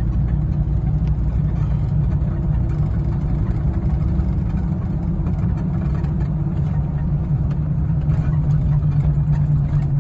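Vehicle engine running steadily while driving on the road, a low drone with road noise that grows a little stronger near the end.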